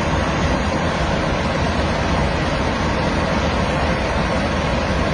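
Airliner cabin noise: the steady, even rush of the engines and the airflow past the fuselage, heard from inside the cabin.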